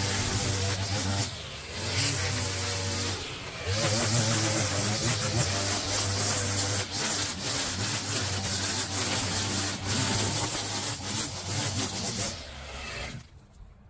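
Small petrol engine of a garden power tool running at working throttle. It eases off briefly twice in the first few seconds, then winds down and stops near the end.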